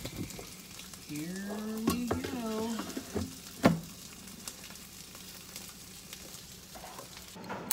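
Air fryer basket of breaded perch being handled and slid into the fryer body: a steady hissing rustle with knocks, and a sharp clack about three and a half seconds in as the basket goes home. A brief wavering hum sounds about one to three seconds in.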